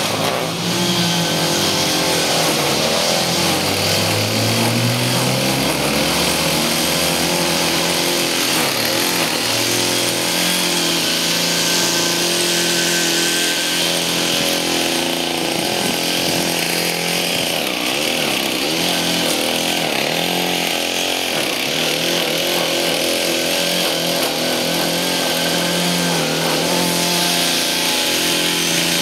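Weed whacker (string trimmer) engine running steadily, with a rising engine note a few seconds in.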